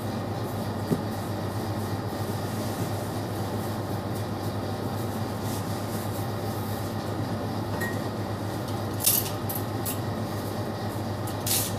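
Steady hum and rush of pizzeria kitchen machinery running, with a low hum underneath. A few light, sharp knocks come over it, one about a second in and a couple in the last few seconds.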